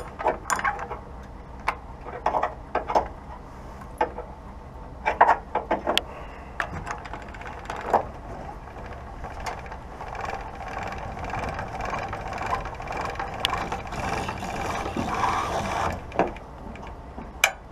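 Hand-cranked boat trailer winch being wound in, its gears and ratchet pawl clicking, with scattered sharp metal clanks. The clicking grows denser in the second half.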